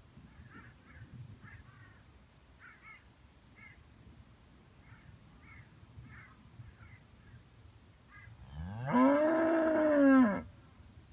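Young red-and-white cow mooing once, a long call of about two seconds that starts low, climbs to a high held pitch and drops away at the end. It comes about eight seconds in.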